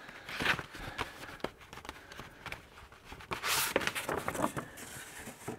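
Sandpaper sheets being handled and set onto a cabinet shelf: paper rustling with light taps and knocks, the loudest rustle about three and a half seconds in.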